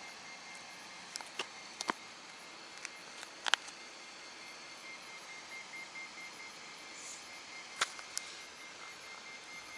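Faint steady background hiss broken by a handful of short, sharp clicks or taps, the loudest about three and a half seconds in.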